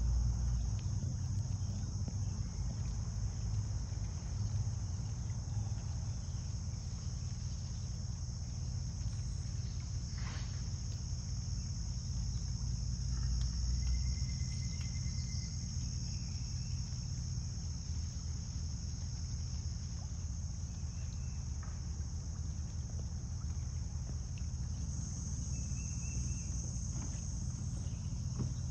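Steady high-pitched insect chorus of crickets over a low rumble. A few faint short chirps sound now and then.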